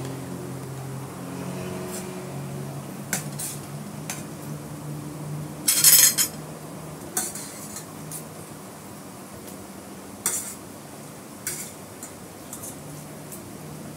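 Metal spoon and fork clinking against a glass plate: scattered sharp clinks, the loudest about six seconds in, over a low steady hum.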